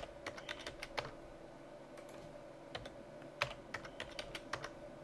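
Typing on a computer keyboard in two short runs of keystrokes, the first right at the start and the second from just under three seconds in, with a pause between.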